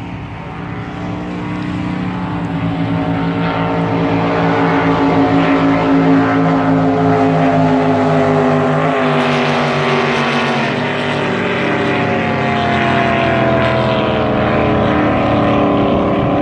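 Racing boat engine running hard, growing louder over the first few seconds, then holding loud with its pitch sliding gradually lower through the second half.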